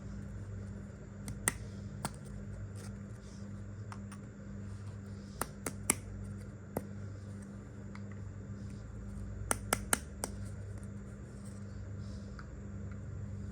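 Miniature toy kitchen pieces being handled, giving scattered sharp clicks and taps at irregular intervals, over a steady low hum.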